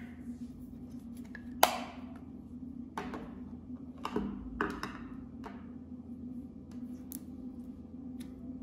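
Knife and eyeshadow pan working over clear slime: one sharp tap about one and a half seconds in, then a few soft crackles as crumbled eyeshadow drops onto the slime. Near the end come faint sticky clicks as fingers press and fold the clear slime.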